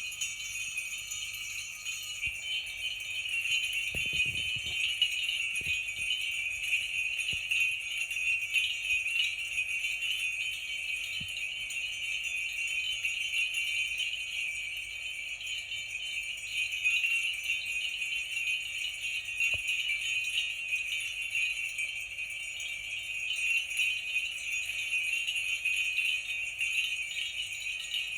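Sleigh bells shaken without a break, a continuous high jingling that swells and eases as the shaking varies.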